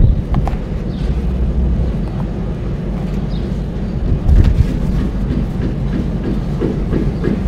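Hands crumbling and breaking clumps of dry sand in a basin: a continuous low, rumbling crunch of sand pouring and being crushed, with a heavier thump about four and a half seconds in.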